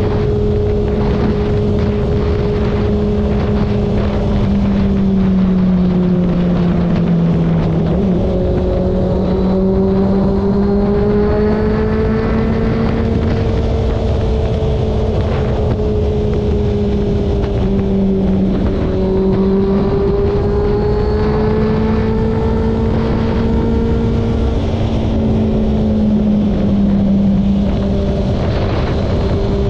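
Motorcycle engine running at highway cruising speed, its steady tone drifting up and down with the throttle and dipping briefly about a third of the way in and again past the middle. Wind rushes over the microphone throughout.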